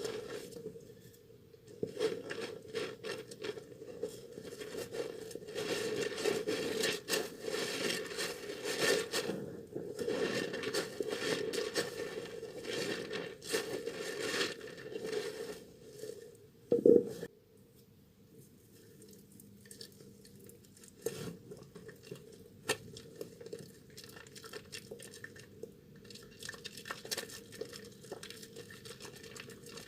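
Soaked, softened Duru Gourmet soap being lathered and squeezed by hand: a wet, crackly rubbing and scraping. There is one louder brief sound a little past halfway, after which it drops to sparse soft clicks.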